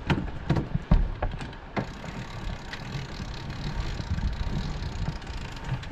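Sailing yacht's cockpit winch cranked with a winch handle, hauling in the spinnaker halyard under heavy load. Sharp clicks come about twice a second for the first two seconds, then the sound settles into a steadier low noise.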